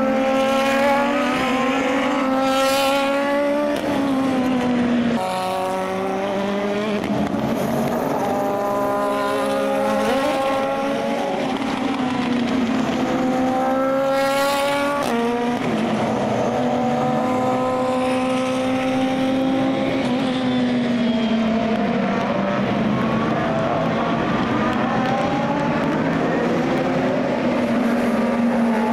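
Super GT race cars driving past one after another on a rain-soaked track. Each engine note holds high and then drops in pitch as the car goes by, over a steady hiss of spray.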